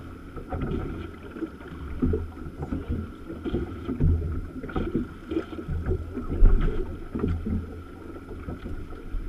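Wind buffeting the microphone of a camera on a small open boat at sea, heard as uneven low rumbling gusts. A faint steady high tone runs underneath.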